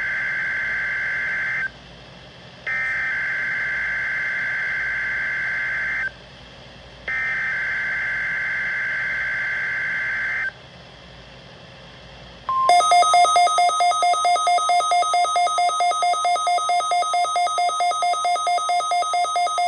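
NOAA Weather Radio emergency alert test signal: three EAS/SAME digital header bursts, each a buzzy data warble about four seconds long with short gaps between them. About twelve seconds in, a steady tone starts and a loud rapid electronic alert beeping, about four beeps a second, runs over it to the end.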